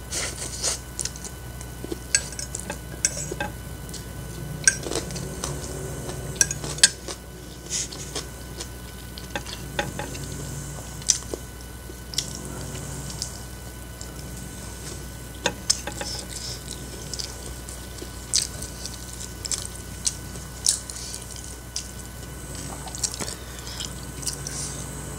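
Eating sounds: a metal fork clinking and scraping against a plate of fried instant noodles, mixed with chewing and biting. The clicks come irregularly, a few every couple of seconds.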